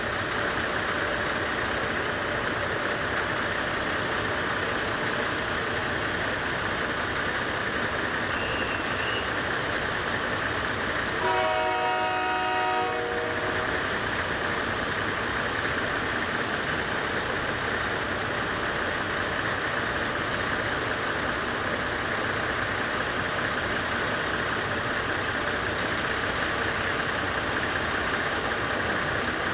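Diesel rail vehicle's engine running steadily. About eleven seconds in, a train horn sounds once for about two seconds, several tones together.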